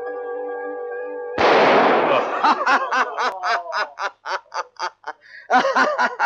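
A held music chord is cut off about a second and a half in by a single loud gunshot from a muzzle-loading musket, which dies away over about half a second. Men then laugh in quick bursts, about four a second.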